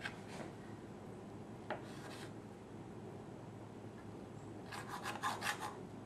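Knife cutting a frosted cake in a stainless steel baking pan, the blade rubbing and scraping through the cake and against the pan in short strokes. A few single strokes come in the first two seconds, and a quick run of louder scrapes comes near the end.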